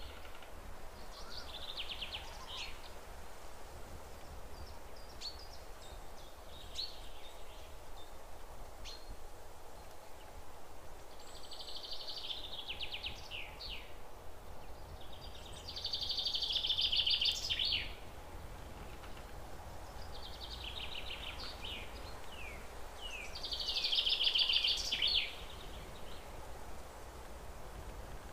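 Songbirds singing: phrases of rapid trills and short falling notes come every few seconds, over steady background noise. The loudest phrases come past the middle and again near the end.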